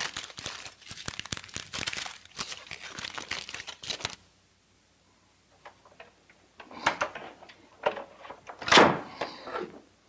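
Aluminium foil packets crinkling and rustling as they are handled in a bucket, a dense crackle that stops about four seconds in. After a short pause come a few separate thuds and rustles, the loudest just before the end.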